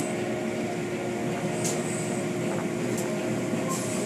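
Automatic tunnel car wash heard from inside the car: a steady hum of the wash machinery with water and foam washing over the windshield, and three brief sharp splashing sounds in the second half.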